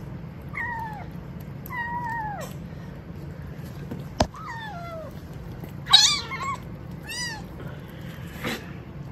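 Kitten meowing about five times, short calls that mostly fall in pitch, the loudest about six seconds in. A single sharp click comes about four seconds in.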